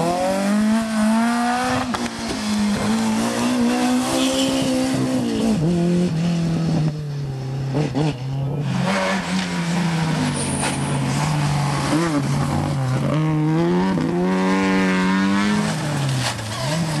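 Rally hatchbacks' engines running at full throttle on a stage, the note climbing under hard acceleration and dropping sharply at each gear change or lift. It rises again strongly about two thirds of the way through as the next car comes on.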